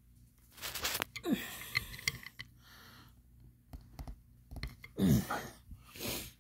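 Strained grunts and sighing breaths of effort, two of them falling in pitch about a second in and about five seconds in, while a tight-fitting barrel nut is pushed by hand into a hole in a wooden strip. A few faint clicks come from the metal and wood being handled.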